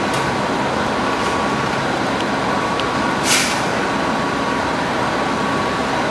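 Potato chip production line machinery and conveyor running with a steady, loud mechanical din. A short burst of hiss cuts in about three seconds in.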